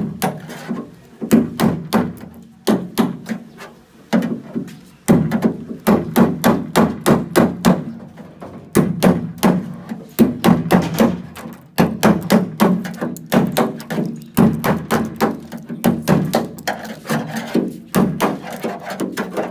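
Hammer blows on the steel sheet metal of a car wing, a fast run of strikes with short pauses between runs, as a dented fender is beaten back into shape.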